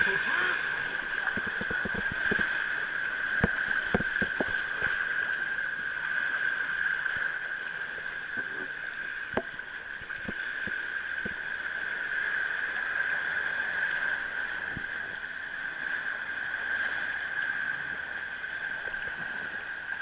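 Water rushing and splashing around an inflatable tube riding down a wild-river water slide, steady throughout, with scattered knocks and bumps, most of them in the first few seconds.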